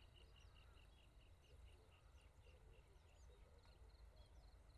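Faint birds calling: a steady series of short chirps, about four a second, that fades out about two seconds in, with scattered higher chirps and a low rumble underneath.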